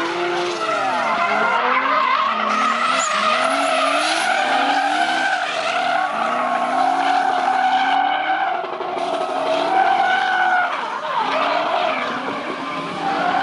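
Two drift cars sliding in tandem: high-revving engines rising and falling in pitch with the throttle, over the squeal of tyres sliding on tarmac.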